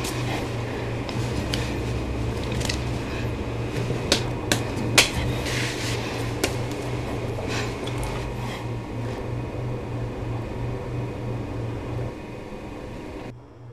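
Hands signing over a kitchen table: sharp slaps and taps of hands and fingers with sleeve rustle, loudest about four and five seconds in, over a steady low hum of room tone. The sound drops away suddenly just before the end.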